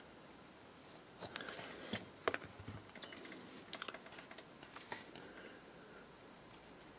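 A cluster of light clicks and short scraping rustles, from about a second in until about five seconds in: hands shifting their grip on a miniature's holder and handling a fine paint brush.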